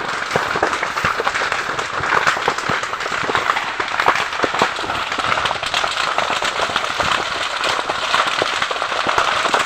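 Brush fire burning through dry undergrowth and palm fronds, crackling steadily with many sharp pops over a continuous hiss.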